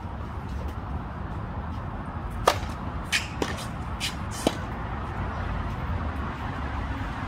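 Tennis racket hitting the ball on a serve about two and a half seconds in, a sharp crack with a brief ringing ping from the strings. It is followed over the next two seconds by several more knocks of the ball against the court and rackets, over a steady low background noise.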